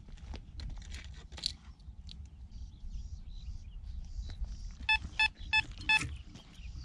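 Metal detector beeping four times in quick succession about five seconds in: short, identical, mid-pitched tones roughly a third of a second apart.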